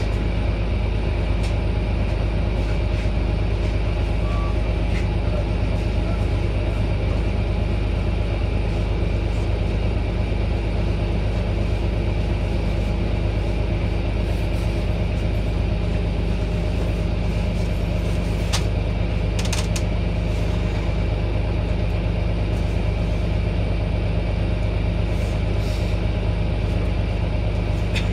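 Orion VII hybrid transit bus with a Cummins ISB inline-six diesel engine idling steadily, a constant low rumble with a steady hum over it.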